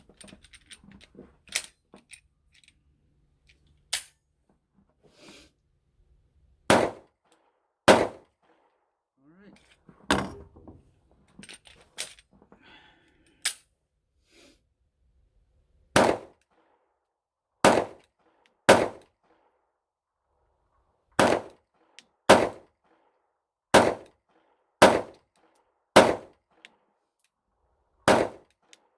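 Ruger SR9C 9mm pistol fired in slow, irregular single shots, about thirteen of them at one to two seconds apart. The pistol cycles each round without a malfunction after earlier light-strike misfires. A few faint clicks come before the first shot.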